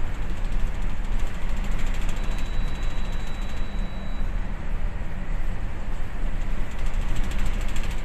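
Steady rumbling noise aboard a bulk carrier in heavy seas, heaviest in the low end, with a fine rattling texture over it.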